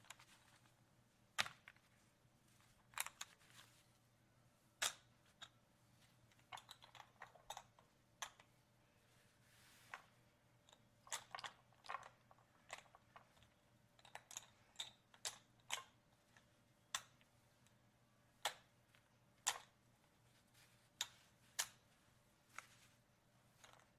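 Casino chips being handled and moved: sharp, irregular clacks of chips knocking together, some single and some in quick little clusters, with short quiet gaps between.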